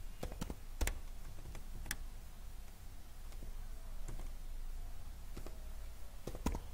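A few separate computer keyboard keystrokes: several clicks in the first two seconds and a quick cluster near the end, over a low steady hum.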